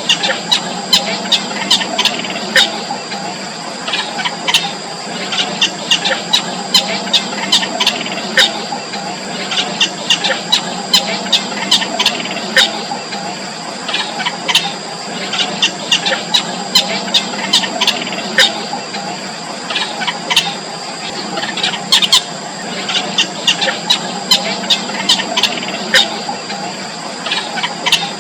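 Nestling birds begging with many short, high-pitched squeaky cheeps in irregular clusters, over a steady high tone.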